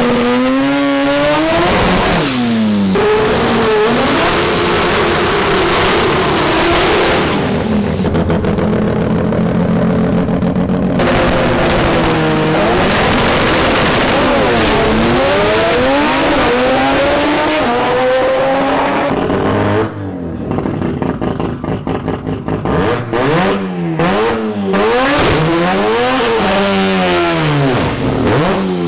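Mazda RX-7 drag cars' rotary engines revving hard during burnouts and launches, the pitch held high, then sweeping up and down with the throttle and gear changes. In the last third an engine stutters on and off rapidly, as if bouncing off a rev limiter while holding revs at the line.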